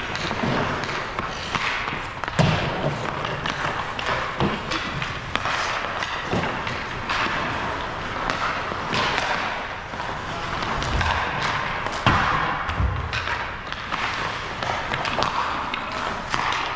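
Ice hockey rink during play: a steady hiss of skates on the ice, broken by irregular clacks of sticks and pucks and a few heavier thuds of pucks or players hitting the boards, the loudest about two and twelve seconds in.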